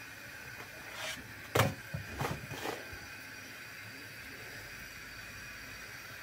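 A few soft knocks and taps as a puffed flatbread is flipped by hand on a hot stovetop bread pan, the loudest about one and a half seconds in, over a steady faint hiss.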